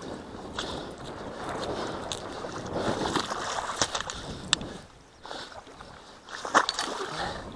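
Footsteps wading through shallow floodwater and mud, sloshing irregularly with each step, with a single louder knock near the end.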